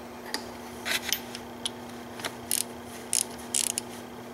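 Short, irregular metallic clicks and scrapes of a hand ratchet and socket working a water pump mounting nut loose, a few clicks at a time, over a faint steady hum.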